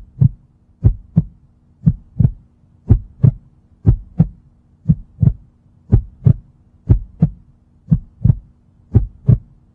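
Heartbeat sound effect: a steady lub-dub, paired deep thumps about one pair a second, over a faint steady hum.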